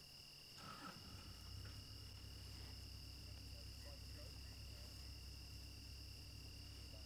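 Crickets chirring steadily at dusk as a thin, continuous high-pitched trill at two pitches. A low steady hum comes in about a second in.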